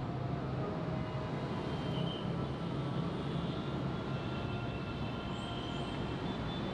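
Dense city road traffic: a steady rumble of many engines and tyres, with faint high-pitched tones drifting in and out over it.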